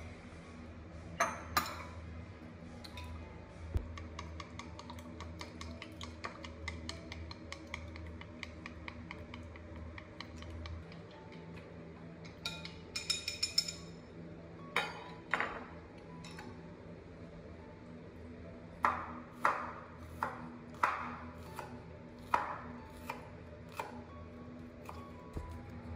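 Kitchen food-preparation sounds: a long run of quick light taps, a ringing clink of a dish or utensil about halfway through, then several louder knocks in the second half.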